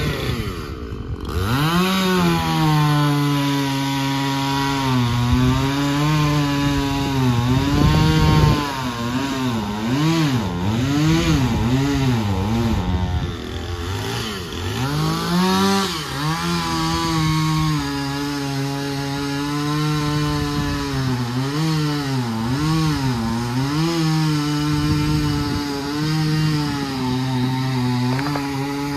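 Gas chainsaw cutting through a storm-felled tree. The engine speed repeatedly drops and climbs back as the chain bites into the wood and clears it.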